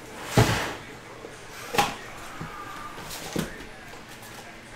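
A cardboard trading-card box being opened by hand, its flap folded back and the packs handled: three sharp knocks and scrapes of cardboard, the first, just under half a second in, the loudest.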